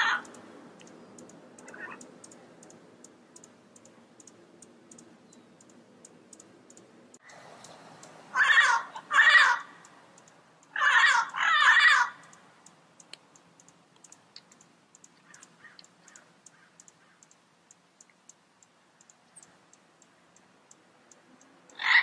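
Yellow-headed amazon parrot calling: two pairs of loud, harsh calls, the first pair about a third of the way in and the second just past the middle. Faint rapid ticking runs underneath in the quieter stretches.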